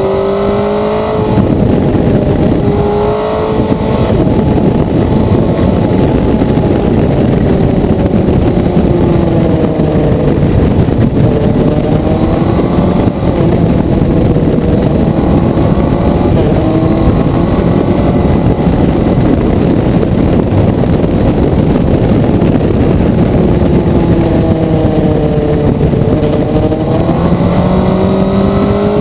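Motorcycle engine heard on board at speed under heavy wind rush, its pitch rising and falling repeatedly as the rider opens and closes the throttle and changes gear.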